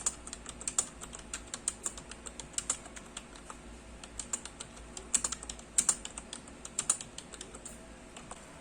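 Typing on a Logitech K375s membrane keyboard: a run of soft, irregular key clicks, not very clicky, during a typing sound test.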